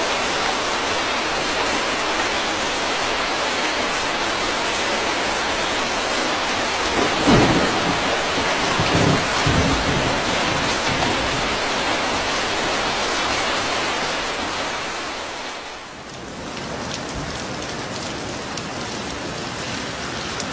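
Heavy rain pouring steadily. About seven seconds in, a rumble of thunder rolls for two to three seconds. About three-quarters of the way through, the rain fades briefly and comes back a little quieter.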